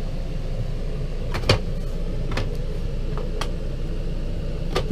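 Several sharp plastic clicks and snaps as a plastic panel on an RV refrigerator is worked loose from its clips, the loudest about one and a half seconds in, over a steady low hum.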